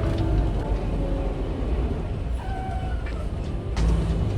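Steady low rumble of a semi truck's engine heard inside the cab, with music playing over it; near the end there is a knock and the rumble grows louder.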